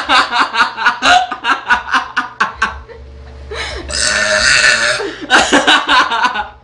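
A person burping loudly and at length: a rapid rattling run for about three seconds, then one long belch about four seconds in, then more rattling near the end.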